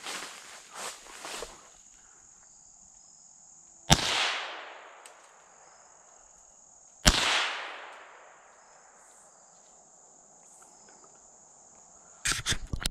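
Two shots from a Henry survival rifle (.22 rimfire) fired at squirrels, about three seconds apart, each trailing off in a long echo through the woods. A steady high insect drone runs underneath, with leaves rustling underfoot in the first second or so and a short burst of rustling and handling noise near the end.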